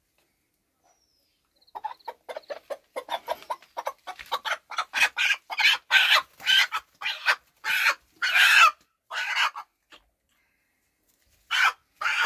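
A rooster being held in a man's hands, squawking in a rapid run of short raspy calls, about three or four a second, starting about two seconds in and growing louder. The calls stop for a moment, then a few more come near the end.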